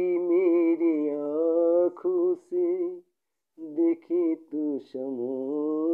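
A man's solo voice singing unaccompanied in long held phrases with a strong vibrato, breaking off briefly about three seconds in before resuming.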